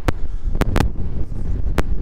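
Wind buffeting the microphone in a steady low rumble, with sharp cracks at irregular spacing: three in the first second and one more near the end.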